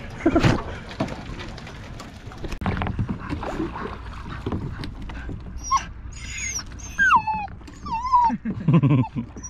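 A dog whining, a run of short high whimpers that slide up and down, in the second half. Earlier there are scattered knocks and a loud thump about half a second in.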